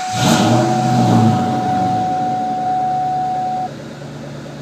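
2003 Ford Mustang Mach 1's 4.6-litre V8 starting: it catches just after the start, flares up in a brief start-up rev, then settles to a steady idle within about two seconds. A steady high tone runs alongside and cuts off near the end.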